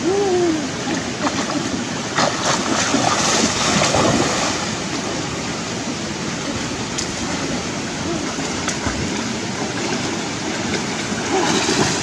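Fast river water rushing steadily, with splashing as a person wades and swims through the current, strongest a couple of seconds in and again near the end. A short vocal sound right at the start.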